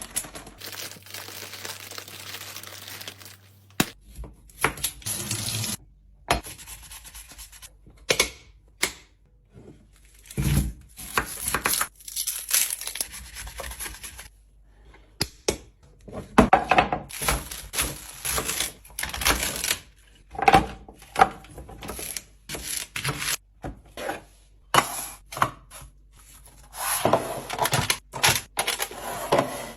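Handling sounds of restocking a fridge: plastic packaging tearing and crinkling, with containers and lids clicking and knocking, in short bursts with abrupt changes between them.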